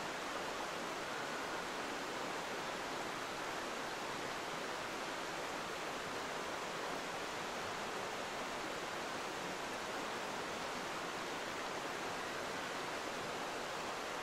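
Steady rushing of a mountain stream's water, an even hiss with no breaks.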